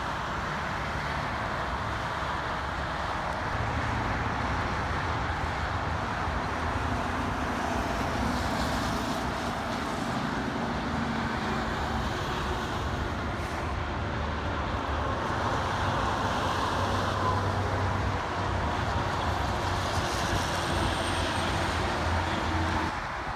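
Steady multi-lane highway traffic: tyre and engine noise, with the low drone of heavy diesel trucks passing, swelling and fading as each goes by.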